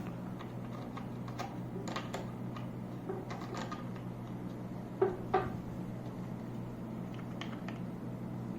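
Light plastic clicks and taps from pedestal fan parts being handled while the guard-mounting knob is screwed on by hand, with two sharper clicks about five seconds in.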